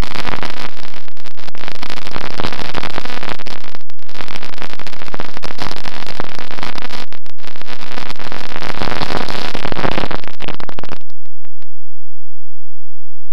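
Electric motor and propeller with wind rush on a Bixler foam plane's onboard camera microphone: a loud, overdriven rushing noise with a few brief dropouts. It cuts off suddenly about 11 seconds in.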